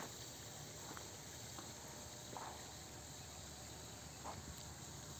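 Faint steady outdoor background hiss with a few soft, irregular clicks, the sharpest right at the start.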